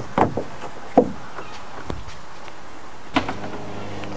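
A canoe tie-down strap knocking and slapping against the canoe's hull and the roof rack as it is thrown over and pulled into place: a few sharp, hollow knocks, the loudest about a second in. A low, steady hum starts about three seconds in.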